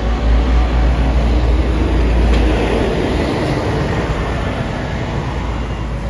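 Scania OmniCity double-decker bus's diesel engine pulling away and driving past, a heavy low rumble with tyre and road noise. Loudest in the first half, easing off as the bus moves away.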